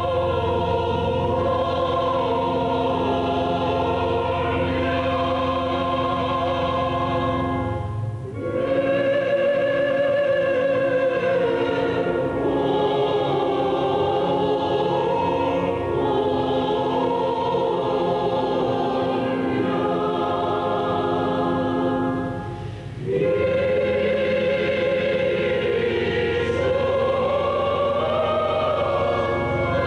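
A choir singing slow, long-held phrases over a steady low held note, with two brief pauses between phrases, about eight and twenty-three seconds in.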